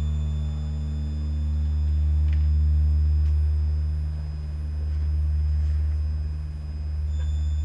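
Deep electronic drone from a performance's score: a sustained low hum that swells and fades slowly, with faint high steady tones above it and a few soft ticks.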